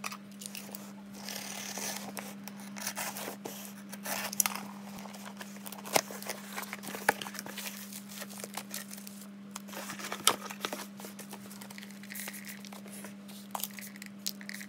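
Cardboard box flaps being opened and bubble-wrapped packages and a clear plastic bag handled, crinkling and rustling, with several sharp clicks and knocks. A steady low hum runs underneath.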